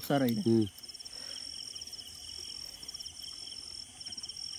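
Insects chirping in a steady high-pitched trill, with a man's short spoken call in the first second.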